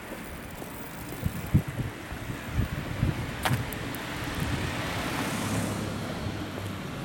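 A small car passing on a narrow street, its engine hum and tyre noise swelling from about halfway through and easing off near the end. Low thumps on the microphone come in the first half, with one sharp click about three and a half seconds in.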